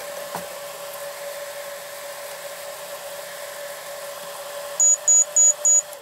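Samsung MS23F301 microwave oven running with its magnetron heating: a steady hum. Near the end it gives four short high-pitched beeps as the cooking cycle finishes, and the hum cuts off.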